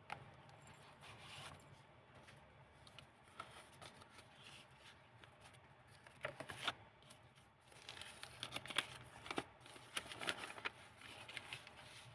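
Pages of a handmade junk journal made from old book pages being turned and handled: soft paper rustling and crinkling, busier and louder in the second half.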